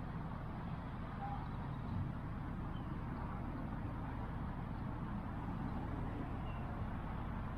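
Steady low rumble of distant road traffic, with a few faint, short, high chirps.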